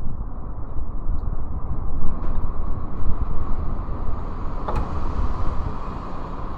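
Typhoon-force wind gusting hard across the microphone, a dense rushing that surges and eases irregularly. A single brief click about two-thirds of the way through.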